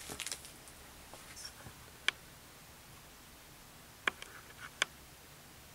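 Faint handling noise: a brief rustle, then three sharp light clicks spaced a second or two apart.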